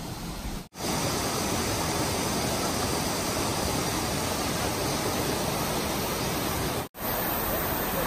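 Mountain stream rushing over rocks, a steady hiss of running water. It comes in abruptly after a quieter first moment and drops out for an instant near the end.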